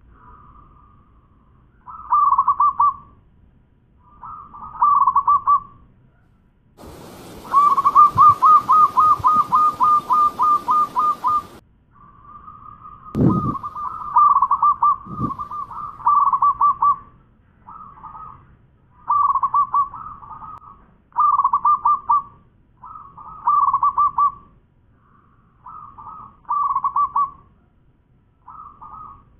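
Zebra dove (perkutut) singing its cooing song: short phrases of rapid staccato notes repeated every two seconds or so. One longer run of evenly spaced notes, the loudest part, comes over a steady hiss about a quarter of the way in. Two low thumps follow shortly after.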